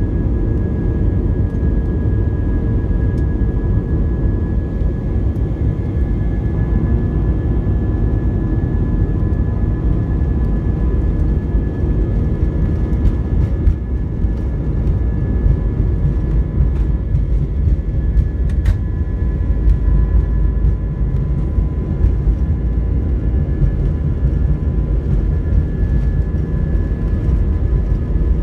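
Airbus A320's twin jet engines heard from inside the cabin during the takeoff roll: a loud, steady rumble with a constant whine over it. There is a single click about two-thirds of the way through.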